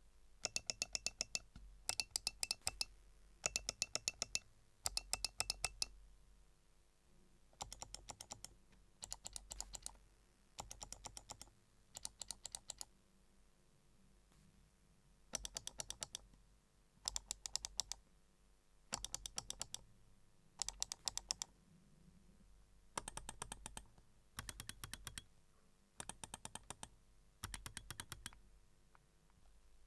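Razer DeathAdder V4 Pro gaming mouse buttons clicked in quick bursts of about ten sharp, loud clicks, each burst lasting about a second with short pauses between. A run of bursts in the middle is softer than the others.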